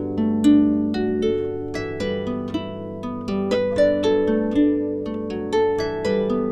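Background music: an instrumental break of plucked, harp-like notes, several a second, over sustained lower tones.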